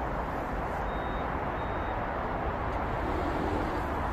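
Steady city road traffic: a continuous wash of tyre and engine noise from many passing cars, with two faint short high beeps about a second in.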